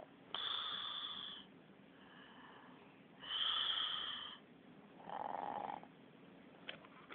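Snoring: two long, raspy breaths about three seconds apart, then a shorter, lower-pitched breath.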